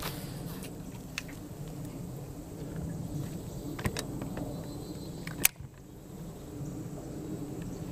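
Steady electric hum of a bow-mount trolling motor, broken by a few sharp clicks. After the loudest click, a little past halfway, the hum drops out for about a second, then resumes.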